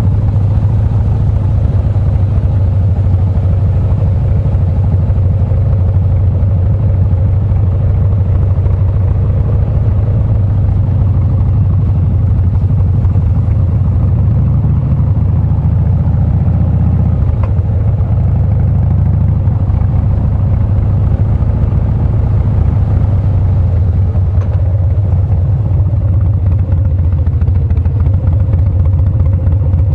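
Harley-Davidson Breakout's V-twin engine running at low, steady revs as the motorcycle is ridden slowly, heard from the rider's seat as a continuous deep rumble.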